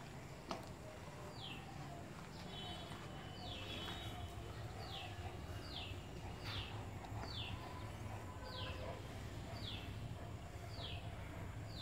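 A bird calling over and over, a short downward-sliding note repeated a little more than once a second, over a steady low background hum.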